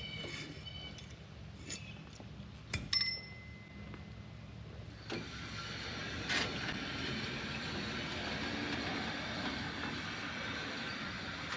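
A few sharp metal clanks from work on a portable sawmill's steel track, one ringing briefly. About five seconds in, a steady rushing noise rises and holds.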